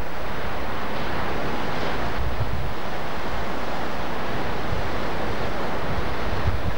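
Steady, loud rushing of wind and surf, with uneven low gusts of wind buffeting the camcorder microphone.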